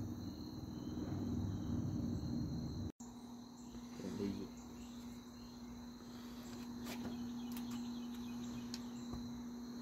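Crickets chirping in a steady, continuous high trill, with a steady low hum beneath and a brief dropout about three seconds in.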